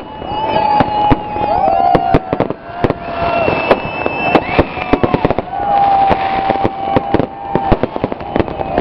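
Fireworks going off in quick, irregular succession: many sharp bangs and crackles, with several held tones of about a second each sounding over them.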